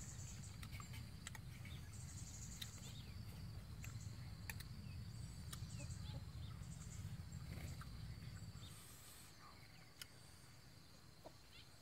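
Quiet rural outdoor ambience: a steady high insect drone with short bursts of high chirping, a few light clicks, and a low rumble that fades about eight and a half seconds in.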